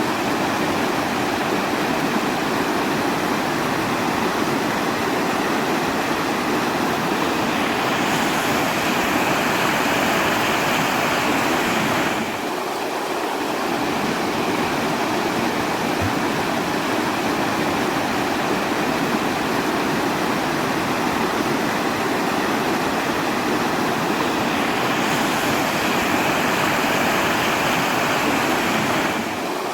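Steady noise of running water, like a waterfall or fast stream, spread evenly from low to high pitch. It dips briefly about twelve seconds in and again near the end.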